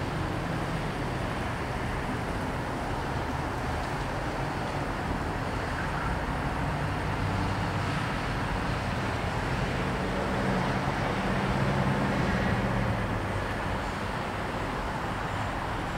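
Road traffic moving through a busy intersection: a steady wash of car and pickup engines and tyre noise, with a low engine hum that swells and eases off about ten to thirteen seconds in.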